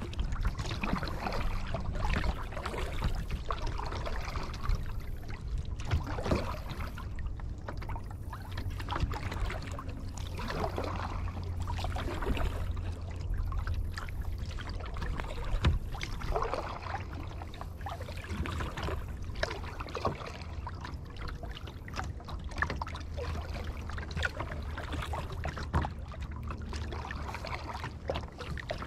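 Kayak paddle strokes dipping and splashing in lake water, a soft swish every second or two, over a steady low rumble.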